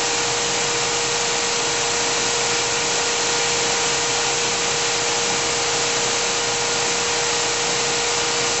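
GMP SG-1000/400 hydraulic surface grinder running: a steady, even whir from its spindle and hydraulic pump motors, with a constant hum in it.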